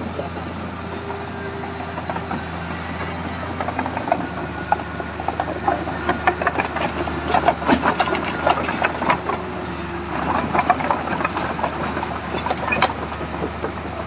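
Komatsu crawler bulldozer's diesel engine running steadily, with its steel tracks clanking and rattling as it moves, from about four seconds in until near the end.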